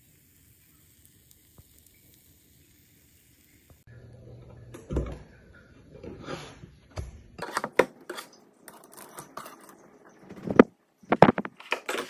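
Kitchen handling sounds of a frying pan and spatula: after a few seconds of near silence, irregular scraping, clicking and clattering, then several sharp knocks near the end as the pan is handled.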